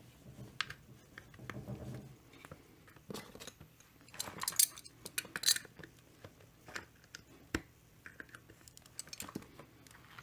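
Scattered small clicks, taps and scrapes of pliers and chainsaw parts being handled during assembly of the saw's clutch and chain-brake side. Two louder scraping rustles come around the middle.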